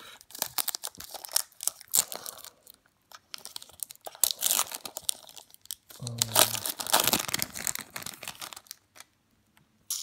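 Wrapper of a 2017 Topps Series 1 baseball card pack crinkling and tearing as it is ripped open by hand, in irregular crackles that are loudest in the middle.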